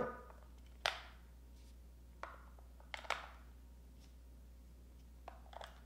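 AAA batteries being slotted by hand into the plastic battery compartment of a handheld electrical stimulation unit: several light, separate clicks and taps a second or so apart, over faint room noise.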